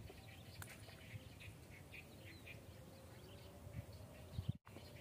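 Faint outdoor ambience with small birds chirping in the distance, short irregular chirps throughout. A single click comes about half a second in, and the sound drops out for a moment near the end.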